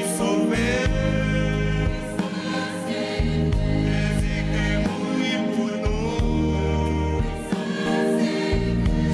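Church choir singing a hymn in harmony, over held low bass notes that change every second or two.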